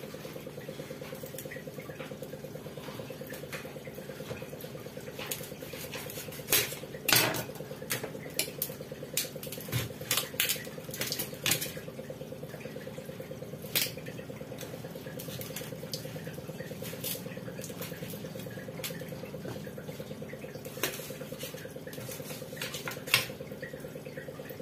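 A knife cutting a cucumber and clinking against dishes: scattered sharp knocks and clicks, thickest in the middle, over a steady hum.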